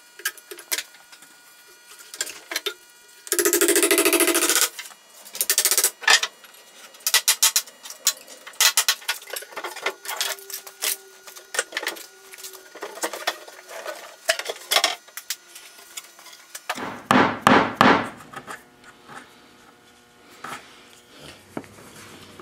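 Wooden wedges being worked in to pry the pegged back panel off an antique wooden chest: scattered clicks and knocks of wood on wood, a loud drawn-out creak about three seconds in, and a cluster of heavier knocks about three-quarters of the way through.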